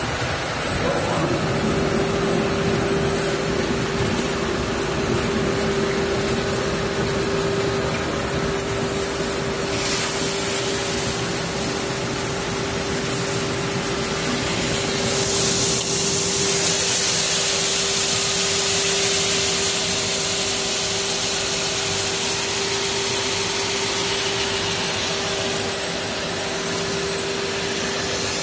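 S1000-R CNC wide belt sander running steadily while sanding rubber strips: a constant mid-pitched hum comes in about a second in over a loud rushing noise, which grows brighter a little past halfway.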